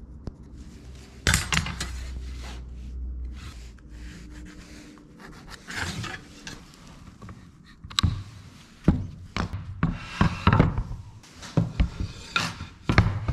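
Workbench handling: a pencil and a metal straightedge rubbing and scraping on a hardwood board, with scattered sharp knocks. The knocks come thicker in the last few seconds, as wooden pieces are set together and spring clamps put on.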